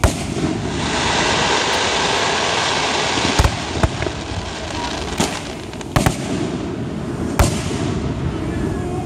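Aerial fireworks bursting: a sharp bang at the start, a dense crackling spell over the next few seconds, then about five more sharp bangs spread through the rest.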